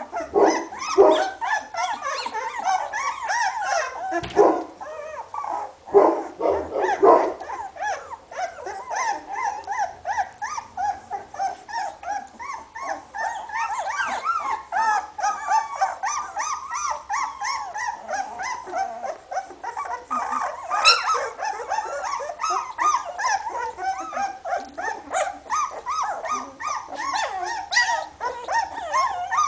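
Two-week-old Hovawart puppies whimpering and squeaking without a break, many short high calls overlapping and rising and falling in pitch.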